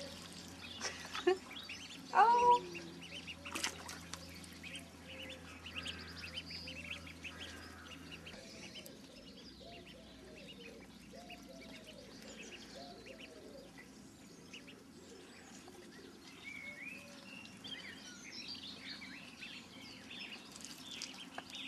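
Young ducks calling with a long run of short, soft quacks, one after another, over light higher chirping.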